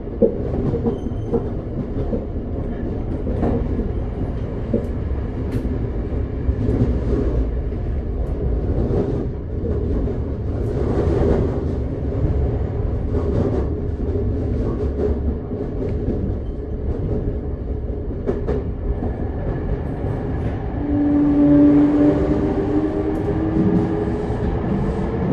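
Interior running sound of a Toei 5300 series train with Mitsubishi GTO-VVVF control: the steady rumble of the moving car, with wheels clicking over rail joints. Near the end a whine from the inverter and traction motors rises slowly in pitch as the train picks up speed.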